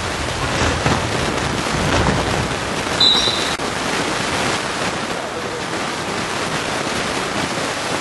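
Steady din of a futsal game in a sports hall: crowd and court noise with no clear words, and a short high whistle blast about three seconds in.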